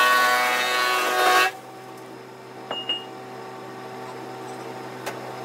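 An electric power tool runs with a steady motor whine, then cuts off abruptly about one and a half seconds in. After that a low steady hum remains, with a couple of light clicks and a brief high beep.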